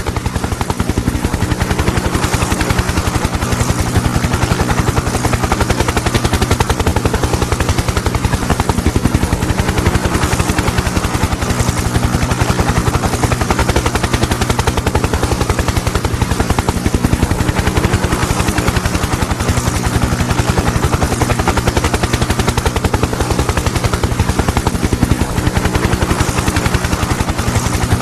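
A Bell UH-1H Huey helicopter running with a steady, rapid beat from its main rotor over a steady low hum.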